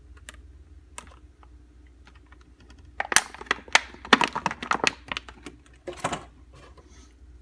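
Packaging being handled: a couple of single clicks, then a run of rapid crackling clicks about three seconds in lasting around two seconds, and a shorter cluster a second later.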